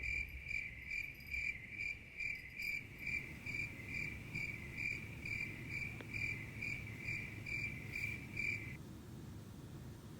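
Electronic chirping cat toy sounding a high, evenly pulsed chirp, about two to three chirps a second, that cuts off near the end.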